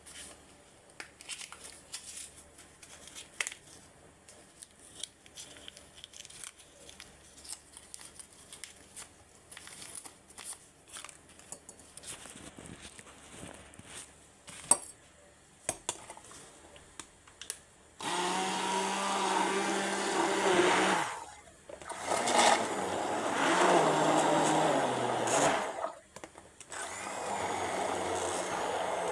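Electric countertop blender running in three bursts in the last third, blending cream and mushrooms into a smooth sauce; the motor's pitch drops during the second run. Before that, only light clicks and taps.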